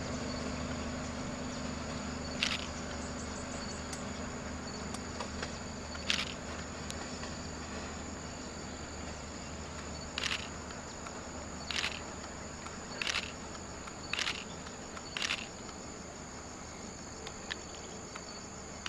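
Steady high-pitched drone of insects, with the low rumble of a receding passenger train fading away over the first several seconds. About seven short, sharp clicks stand out at irregular intervals, typical of a DSLR camera's shutter firing.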